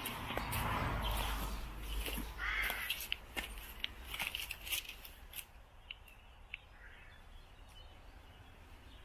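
Crows cawing a few times in the first three seconds, over scattered sharp clicks and crunches of footsteps through undergrowth and over debris. Everything grows quieter in the second half.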